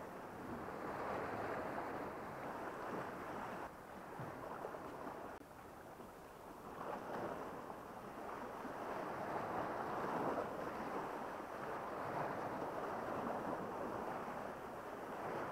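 Sea waves washing on the shore: a steady rushing that swells and eases every few seconds.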